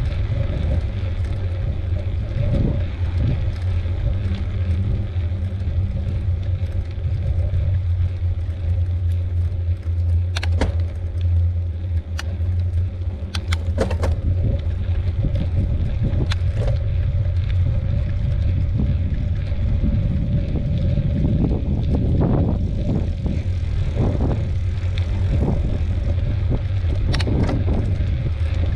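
Riding a bicycle on a lake trail: a steady low rumble of wind on the microphone and rolling tyres. Scattered sharp clicks run through the middle, and heavier knocks and bumps come in the last several seconds.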